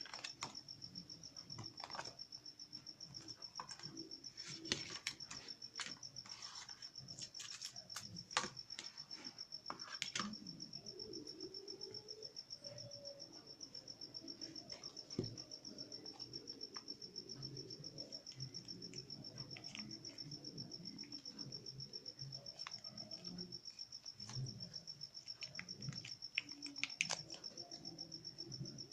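Cricket chirping in a steady, rapid high-pitched trill, with scattered sharp clicks over it.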